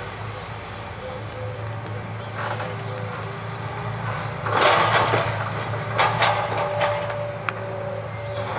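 Hitachi Zaxis tracked excavator's diesel engine running steadily, its demolition grab crunching through and dropping demolition rubble about halfway through. Several sharp knocks follow, and a faint whine runs underneath.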